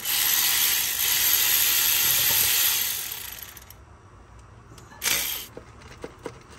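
A pressurized spray hissing in engine-bay work: one long burst of about three and a half seconds that fades out, then a short second burst about five seconds in, followed by a few small tool clicks.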